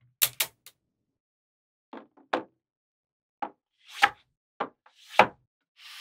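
Small magnetic balls clacking as sheets of them are snapped into place on a model, about nine sharp clicks at uneven intervals. Twice, around the middle and near the end, a magnetic-ball sheet rubs as it slides over a smooth board.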